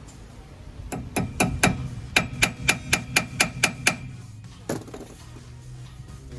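Hammer blows on metal during work on a pickup's rear wheel brake: a quick run of about a dozen ringing strikes, roughly four a second, then a single strike a little later.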